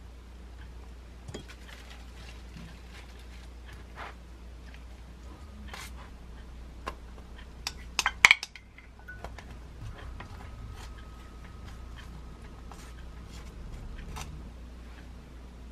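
Food-prep handling sounds: wooden chopsticks and a wooden spoon tapping and scraping on bread and a wooden cutting board, in scattered light clicks, with a short burst of louder clatter about eight seconds in.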